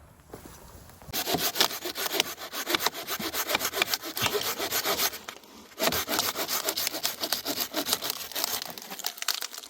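Hand saw cutting through wood with quick back-and-forth strokes, pausing briefly about five seconds in before carrying on.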